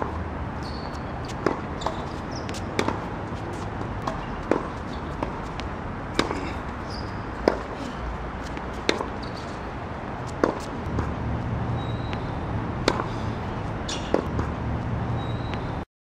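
Tennis balls struck by a racket and bouncing on a hard court during a rally: sharp pops every second or two over steady background noise. The sound cuts off suddenly near the end.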